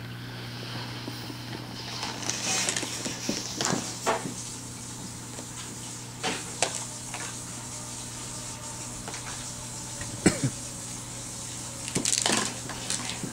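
Scattered clicks and clatter of plastic toys being handled by a baby: a clear plastic tub and a chain of plastic toy links knocking together, with one sharper knock about ten seconds in and a small flurry near the end.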